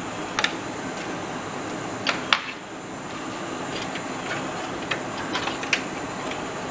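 Sharp plastic clicks and taps of power-supply cable connectors being handled and pushed into place inside a computer case, about six in all, the loudest a little over two seconds in, over steady background noise.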